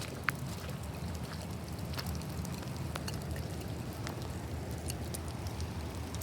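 Rain falling, with scattered single raindrops ticking close by over a steady low rumble.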